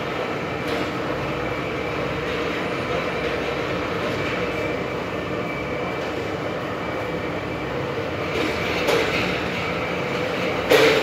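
Steady mechanical noise with a faint hum, as of machinery running, and a short louder knock near the end.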